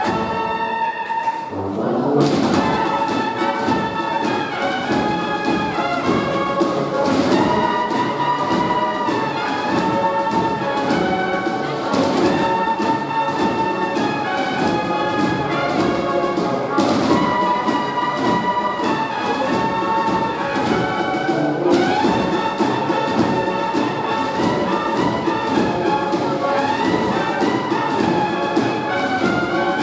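Bugle and drum band playing a Christmas piece: the bugles carry a sustained melody over the drums, with a loud full-range crash about every five seconds.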